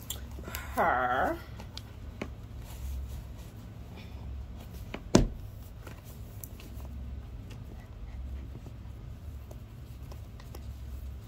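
Faint rustling and small taps of sneaker laces being pulled and tied, with one sharp knock about five seconds in, over a low steady hum.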